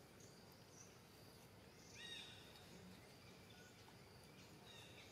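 Near silence: faint outdoor ambience, with a short, high, chirping animal call about two seconds in and a weaker one near the end.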